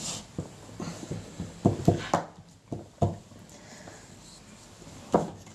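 Scattered light clicks and knocks of hands handling an opened mixing console: a few close together about two seconds in, another a second later, and a sharper one near the end.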